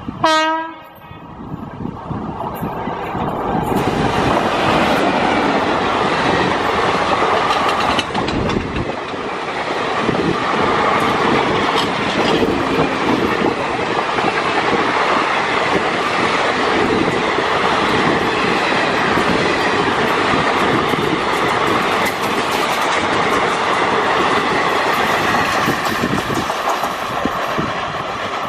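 WAP4E electric locomotive sounds one short horn blast right at the start, then its train of coaches passes at speed, a loud steady rush of wheels on track that builds over the first few seconds and eases slightly near the end.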